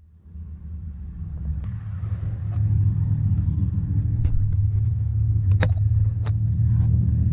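A vehicle engine running with a steady low rumble, fading in over the first couple of seconds, with several sharp clicks and knocks over it.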